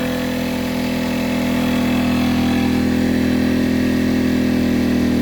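Harbor Freight Predator 1400 inverter generator's small gasoline engine running steadily under heavy load near its limit of about 1.2 kW, getting slightly louder about two seconds in.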